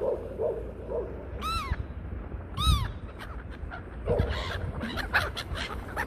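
Black-headed gulls calling as a flock circles: two clear arched cries a little over a second apart, then from about two-thirds of the way through a run of shorter, scratchier calls. A low wind rumble on the microphone lies underneath.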